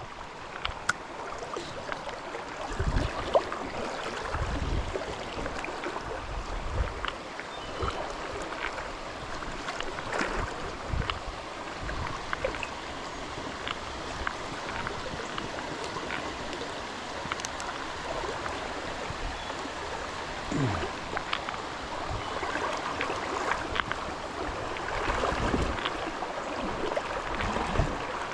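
Creek water rushing and splashing steadily around someone wading against a strong current, with occasional low thumps.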